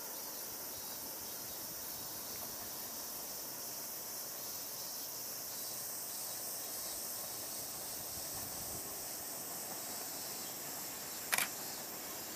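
Steady, high-pitched chorus of insects chirring, with a single sharp click near the end.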